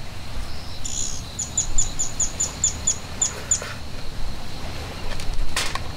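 A small bird calling a quick run of about a dozen high, short chirps, roughly four a second, for a few seconds. A brief noisy rush follows near the end.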